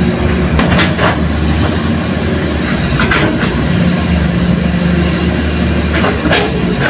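Hitachi hydraulic excavator's diesel engine running steadily under load while it loads a dump truck, with three short clattering bursts, about a second in, about three seconds in and near the end.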